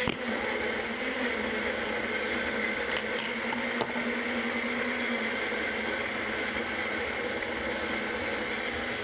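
Countertop blender running steadily at full speed, blending a smoothie, a constant motor whir with no change in pitch.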